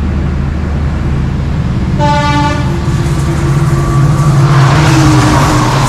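A train horn sounds once, briefly, about two seconds in. The rumble of a train passing close by then builds and grows louder over a steady low hum. This is typical of a crossing train going through while the stopped train waits.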